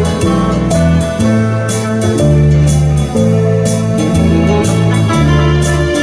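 Live instrumental band music: an electric guitar tune over bass guitar and electronic keyboard, with bass notes changing every half second or so and regular cymbal-like strikes.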